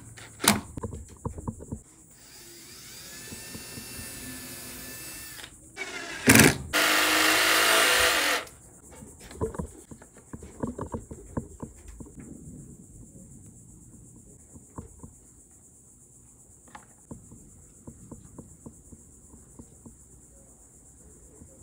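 Cordless drill running against wood: a softer run a few seconds in, then a louder one of about a second and a half around seven seconds in. Light knocks and taps of the wood being handled follow.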